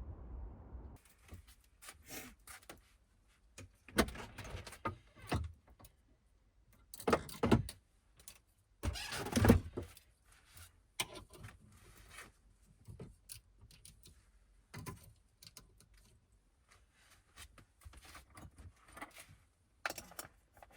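Irregular clinks, knocks and rustles of objects being handled, with louder clattering clusters about 4, 7 and 9 seconds in.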